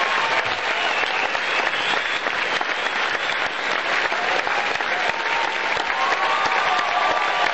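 Audience applauding steadily: a dense, even clapping.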